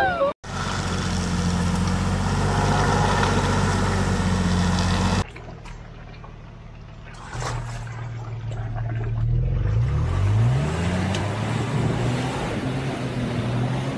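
Vehicle engine running steadily with a haze of road or wind noise. It cuts off abruptly about five seconds in, and a quieter engine hum follows, rising in pitch as it revs around ten seconds in before settling back to a steady run.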